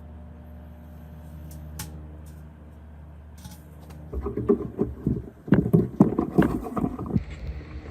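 Microwave oven running with a steady hum, a Wi-Fi circuit card inside. About four seconds in, loud irregular crackling and popping starts and lasts about three seconds.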